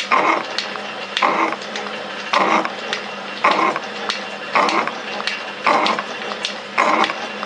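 Metal shaper cutting gear teeth: the ram strokes about once a second, and each cutting stroke scrapes the form tool, ground to the tooth profile, through the bull gear blank. A steady motor hum runs underneath.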